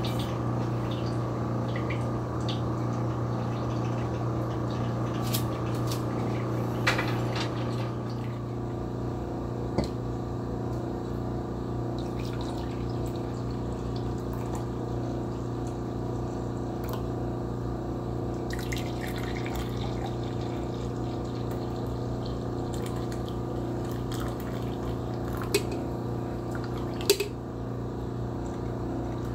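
Steady kitchen hum with a light watery hiss of cooking, broken by a few sharp clinks of utensils on cookware, the loudest near the end.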